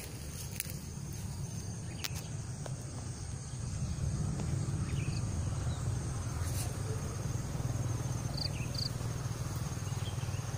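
Insects shrilling steadily in the garden vegetation, with a few short chirps near the end, over a low steady rumble that grows louder about four seconds in.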